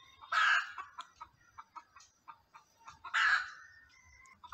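Bird calling: three short, harsh, loud calls of about half a second each, one near the start, one about three seconds in and one at the end, with fainter short calls in between.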